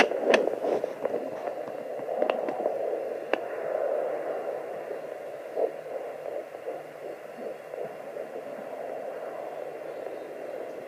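Sonoline B fetal doppler speaker giving a pulsing, whooshing blood-flow sound, loud enough to mask the baby's heartbeat; the uploader takes it for an artery. A few sharp crackles stand out in the first few seconds.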